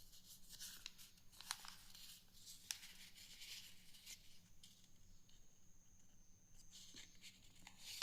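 A sheet of paper being handled and creased while folding, quiet rustling and crinkling with sharp clicks, the loudest about 1.5 and 2.7 seconds in.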